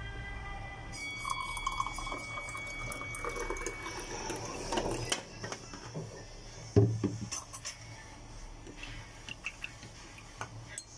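Water poured into a drinking glass over honey, a steady filling sound with a rising pitch for about four seconds. Then a sharp knock about seven seconds in, and several light clicks.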